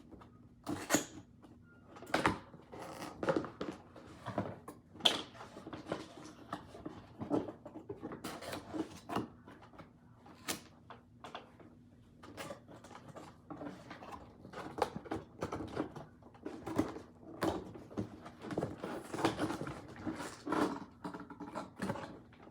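Toy packaging being handled and opened by hand: irregular clicks, knocks and rustles, one every second or so, some sharper than others.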